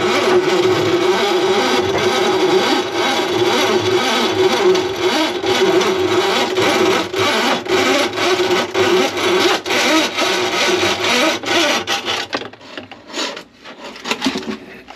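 Powered drain snake running, its motor humming steadily while the spinning cable rattles inside a kitchen sink drain line clogged with grease. It runs steadily for about twelve seconds, then cuts in and out and dies away near the end.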